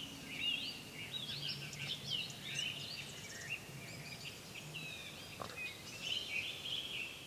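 Small birds singing and chirping in many quick rising and falling notes, faint over soft outdoor background noise.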